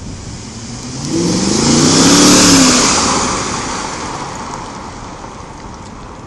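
Mercedes-Benz ML63 AMG's 6.2-litre V8 driving past: the engine note climbs and swells to its loudest a little over two seconds in, then drops in pitch and fades as the SUV moves away.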